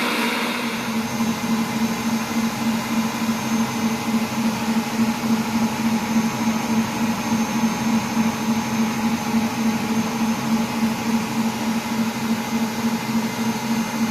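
Kenwood Cooking Chef Gourmet stand mixer running steadily, beating egg whites and sugar into meringue: a steady motor hum with a fast, even pulse from the turning beater.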